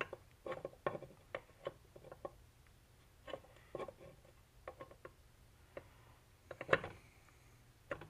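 Light metal-on-metal clicks and clinks, irregular, as the camshaft and its gear are seated in a Honda GX160 crankcase and meshed with the crankshaft gear. A louder cluster of clicks comes near the end.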